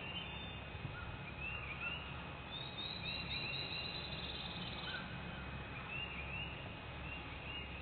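Songbirds calling in the woods: short chirping phrases every second or so, with a brief trill about the middle, over a steady low outdoor background noise.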